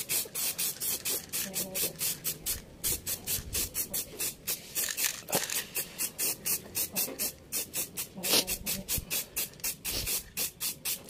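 Aerosol can of gray primer spraying in quick short bursts of hiss, about four a second, as the nozzle is pressed again and again.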